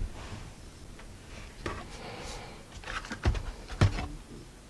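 Several short, light clicks and knocks, the loudest about three seconds in, over a faint steady hiss.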